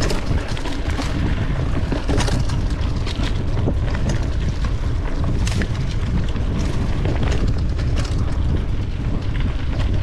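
Wind rushing over the camera microphone during a mountain bike ride, a steady low rumble, with scattered sharp clicks and clatters from the bike on rough trail.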